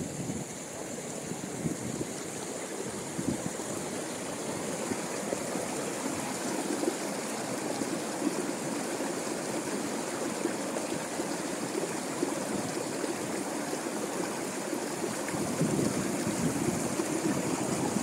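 Steady rush of a fast-flowing river running over rocks at the water's edge.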